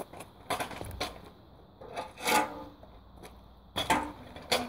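Kick scooter knocking and scraping on asphalt: about four sharp clacks of the deck and wheels, with rough scraping in between.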